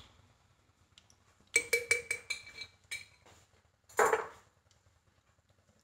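A metal spoon clinks several times against a glass jar of ghee, each strike briefly ringing. A single short scrape follows about four seconds in.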